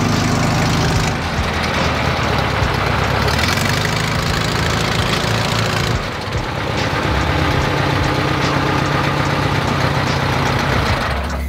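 Air-cooled flat-four engine of a 1970 Volkswagen bus running as the bus rolls along in low gear, its exposed engine revving slightly down and back up a couple of times. It runs on a newly fitted 34 PICT carburetor that is not yet fully tuned.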